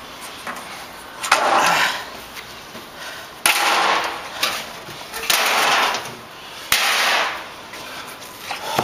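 Four loud crashes about two seconds apart, each a sharp hit trailing off in a short rustling scrape: wooden boards, cardboard and other props being thrown down onto a pile on grass.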